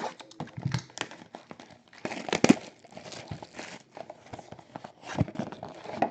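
Trading card packs being torn open by hand, their wrappers crinkling and crackling in irregular bursts, with the loudest tear about two and a half seconds in.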